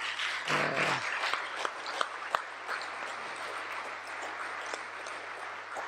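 Audience applause: many people clapping steadily, with a brief voice heard about half a second in.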